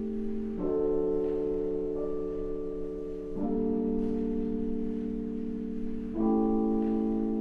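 Lo-fi hip hop music: soft sustained chords that change about every three seconds, with faint, muffled percussion.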